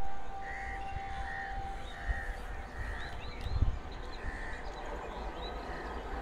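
Birds calling over and over in short arched calls, about one every second, over a low rumble, with a couple of low thumps about two and three and a half seconds in.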